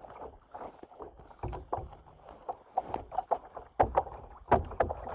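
Water splashing around a kayak, with irregular knocks against the hull, the strongest about four and four and a half seconds in.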